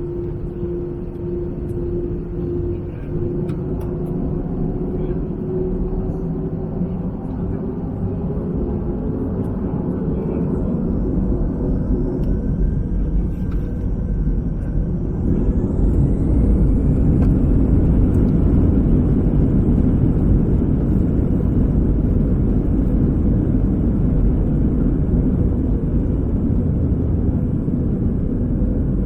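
Airbus A321-200 jet engines heard from inside the cabin: a steady low rumble with a hum, then about halfway through the engines spool up with a rising whine and the rumble grows louder as takeoff thrust is applied.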